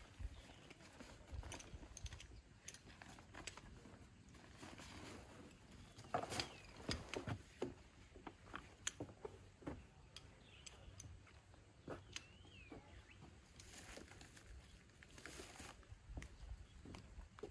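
Rustling of a backpack and small knocks as gear is taken out and set down on wooden deck boards, loudest about six seconds in. A bird gives a short up-and-down whistled call in the background about twelve seconds in.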